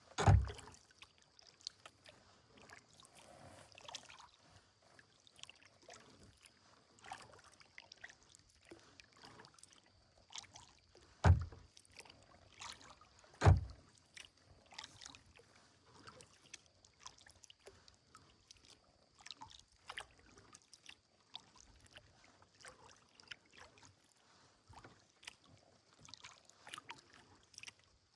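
Kayak paddling: quiet splashes and drips of the paddle with small knocks, under a faint steady high tone. Three loud deep thumps stand out, one near the start and two about two seconds apart in the middle.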